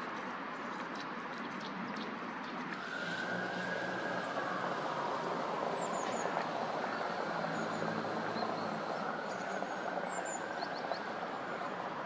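Traffic noise from a passing vehicle that swells about three seconds in and fades near the end, with a whine that dips and rises in pitch. A few short, high bird chirps sound faintly over it.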